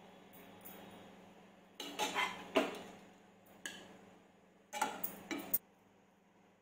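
A metal spatula scraping and clinking against a nonstick pan and a plate as cooked grated corn is scooped out, in two short bursts of clinks about two seconds and five seconds in.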